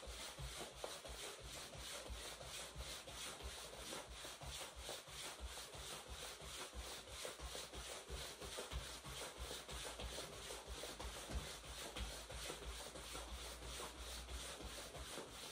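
Faint, rhythmic footfalls of a person jogging in place, about three steps a second, with the swish of a zip jacket rubbing at each stride.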